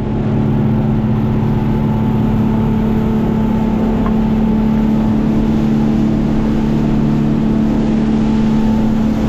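A fishing boat's engine running steadily at cruising speed, with the rush of water from the hull and wake underneath.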